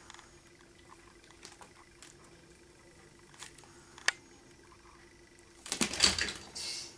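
A kitten plays with a mouse on a tiled floor, with light paw taps and scuffles. There is a sharp click about four seconds in and a loud rustling scuffle near the end, over a low steady hum.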